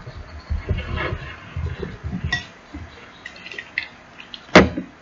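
Spoon stirring sticky slime mixture in a bowl, with soft wet thuds and small clicks, and one sharp clink of the spoon against the bowl near the end.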